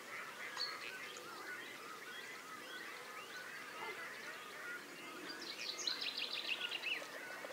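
Distant chorus of waterbirds, mainly Canada and greylag geese, calling across open water. About five seconds in, a quick run of high chirps from a small bird rises over it for a couple of seconds.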